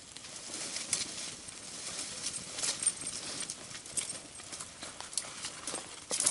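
Small kindling fire of thin twigs over bark tinder crackling, with irregular sharp pops and snaps as the kindling catches.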